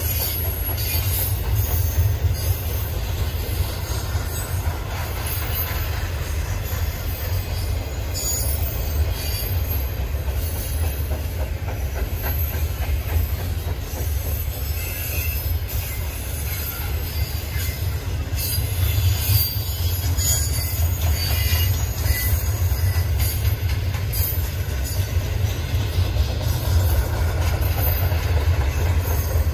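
Freight train rolling past: a steady low rumble of the cars on the rails, with brief high-pitched squeaks and clicks from the wheels scattered through it.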